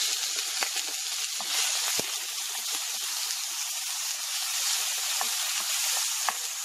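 Garlic, onion and tomato sizzling steadily in a hot wok as they are sautéed and stirred with a wooden spoon, with a few light knocks of the spoon against the pan.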